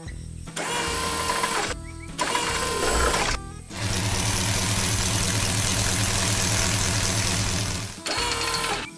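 Cartoon soundtrack of music and cut-together sound effects. From about four seconds in, a loud, steady machine-like running noise lasts about four seconds, then cuts off suddenly.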